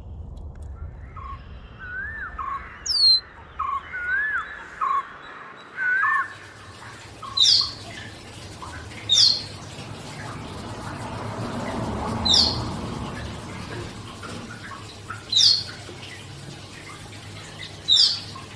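Birds calling: a run of short looping chirps in the first few seconds, then five loud, sharp high calls, each sweeping downward, every two to three seconds.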